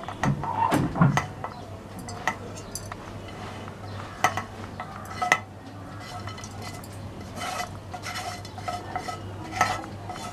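Metal spoon clinking, knocking and scraping against steel utensils, a string of short sharp clinks, as roasted masala is spooned into a mixer jar for grinding. A faint steady low hum runs underneath.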